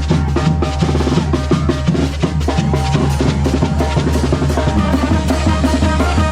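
Oaxacan banda brass band playing loudly, with the drums to the fore: rapid snare and bass drum beats over steady low brass notes.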